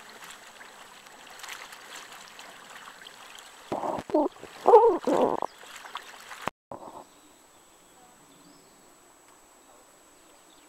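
Carbon dioxide gas bubbling up vigorously through the water of a wooden barrel set over a mofette, a steady fizzing and bubbling rush. About four seconds in a person's voice rises loudly over it for a couple of seconds. After about six and a half seconds the sound cuts off abruptly to a faint, quiet background.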